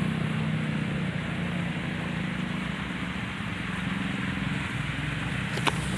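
Steady rush of water flowing through a concrete irrigation canal, with a low steady hum underneath and a single short click near the end.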